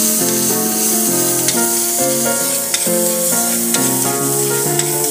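Chopped vegetables sizzling as they fry in a metal wok, stirred, with a few light clicks of the stirring utensil against the pan. Background music with a melody plays throughout.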